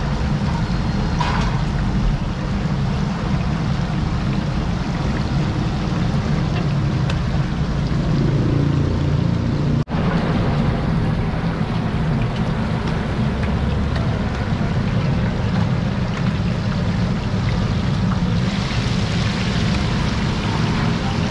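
Steady low rumble with a hiss over it, cut by a brief dropout about ten seconds in. From about eighteen seconds in, a brighter sizzle joins as chapli kababs deep-fry in a wide pan of oil.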